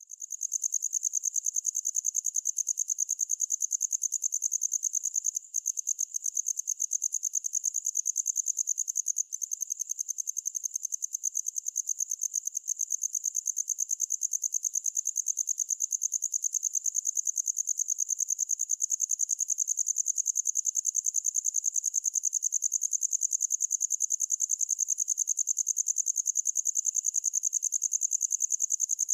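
Cricket chirping in a rapid, steady, high-pitched pulsing trill, broken by two brief pauses early on.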